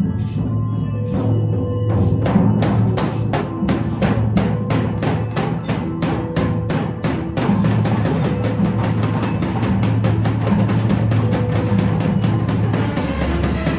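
Group percussion: several players beating a drum with sticks, with a tambourine jingling, in a steady beat of about two and a half strikes a second that speeds up into fast, dense drumming about halfway through.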